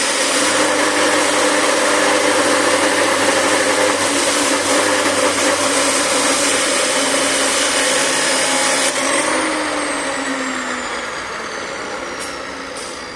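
An electric motor-driven machine running loudly with a strong hiss over steady humming tones. It is switched off about nine seconds in, and its pitch falls as it winds down.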